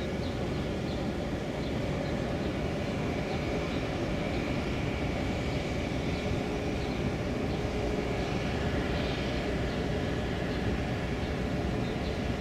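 Tugboat's diesel engine running with a steady low drone as the boat passes under way.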